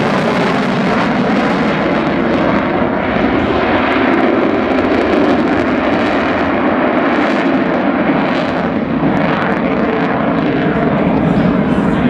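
Loud, steady jet engine noise from an F-22 Raptor's twin turbofans as the fighter flies its airshow demonstration.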